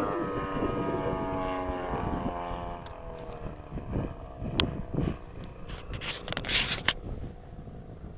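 Model airplane engine running in flight, its note falling slowly in pitch and fading over the first few seconds as the plane flies away. Gusts of wind buffet the microphone in the second half.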